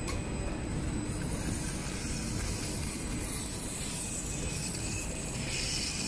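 LAN cable pair-twisting machine running on a test before delivery: steady machine noise from its rotating pulleys and reels, with a higher hiss coming up about two seconds in.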